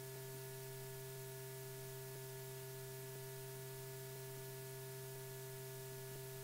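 Steady hum with a few fixed tones over an even hiss: the background noise of an old film soundtrack, with no sound of the action on screen.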